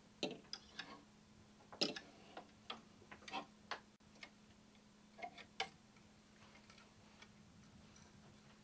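Clothes hangers clicking and scraping on a wardrobe rail as garments are pushed aside one by one: faint, irregular clicks, most of them in the first four seconds and a few more around five and a half seconds in.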